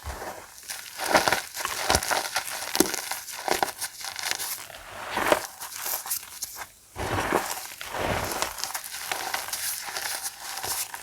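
Reformed gym chalk blocks being crushed and crumbled by hand, a run of irregular dry crunches and crackles with a brief pause a little past halfway.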